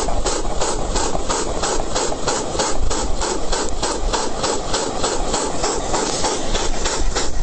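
Homemade steam-locomotive moped running in place, chuffing like a steam engine: a steady rhythm of hissing puffs, about five a second.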